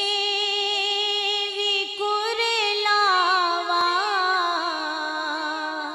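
A woman's voice singing the opening of a naat, an Urdu devotional song, holding long wavering notes. About two seconds in, a second, higher vocal line joins with melismatic turns above it, and the lower line then steps down in pitch.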